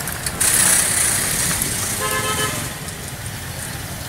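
Busy city street traffic heard from a moving vehicle, with a loud hiss in the first second or so. A vehicle horn honks once for about half a second near the middle.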